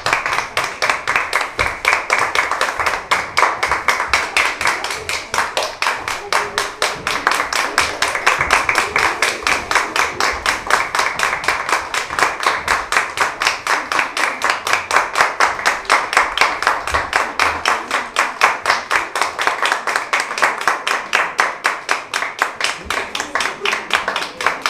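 Audience applauding, the claps falling into an even rhythm of about four a second.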